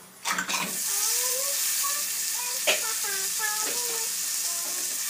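Pieces of fish dropped into hot oil in a frying pan on a gas stove, with a couple of knocks as they go in. They then fry with a steady sizzle.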